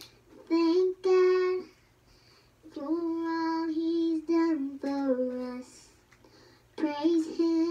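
A young girl singing unaccompanied, in three short phrases of long held notes with pauses between them; the middle, longest phrase steps down in pitch near its end.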